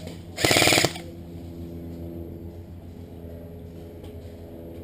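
A short full-auto burst from an airsoft gun: a rapid string of shots lasting about half a second, near the start. After it comes a steady low hum.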